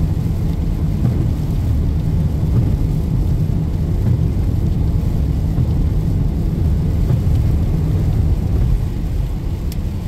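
Steady low rumble of a car driving on a rain-soaked highway, heard from inside the cabin: tyre noise on the wet road with the rain around it.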